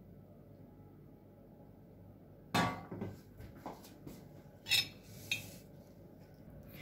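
A metal baking pan set down on the table with a clank about two and a half seconds in, followed by a few lighter clinks of a metal spoon against a ceramic bowl.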